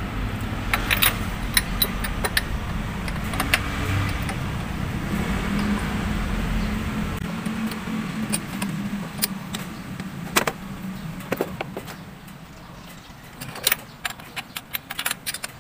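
Metal clicks and clinks of a T-handle spark plug wrench and socket as a spark plug is tightened down in a car engine bay, in irregular taps, with a cluster near the end. A low steady hum underneath fades out about halfway through.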